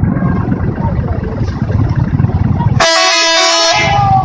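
Bus 'telolet' multi-tone horn sounding about three seconds in: a short tune of stepped notes lasting about a second, over a steady low rumble.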